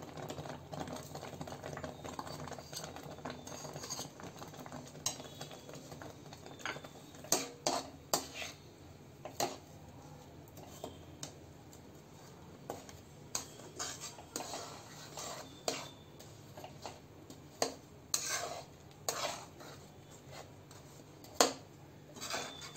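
Slotted metal spatula scraping and tapping against a stainless-steel wok, stirring a thick milk-and-coconut filling as lumps of date-palm jaggery melt into it. The scrapes and clinks come irregularly.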